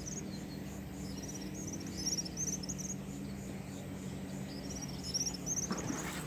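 Small birds chirping in quick, high, repeated bursts of several notes, over a steady low hum.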